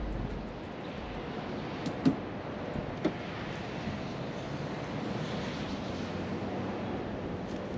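Steady outdoor background noise, with a few light clicks and knocks as hands work a motorcycle's ratchet tie-down strap, and a louder knock at the very end.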